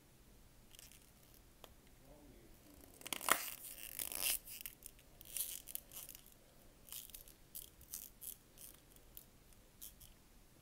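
Plastic coin packaging and an airtight coin capsule being handled: a run of short rustles, crinkles and small clicks, loudest about three to four seconds in, then scattered lighter ones.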